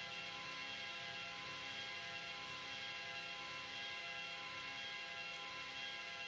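Steady hum of several constant high tones over an even hiss, unchanging throughout, with no distinct bird calls.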